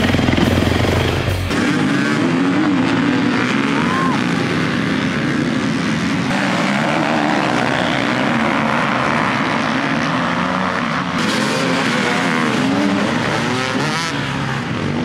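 Many enduro dirt-bike engines revving hard as a pack of motorcycles races past, their pitches overlapping and rising and falling. A heavier, lower sound in the first second and a half gives way to this at a cut.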